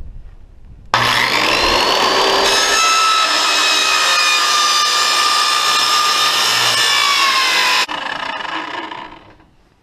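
Skilsaw 7¼-inch circular saw, its ordinary wood blade mounted backwards, cutting through corrugated galvanized steel roofing sheet. A very loud, high-pitched metallic screech starts suddenly about a second in, holds steady for about seven seconds, then cuts off sharply as the cut ends, and the saw winds down.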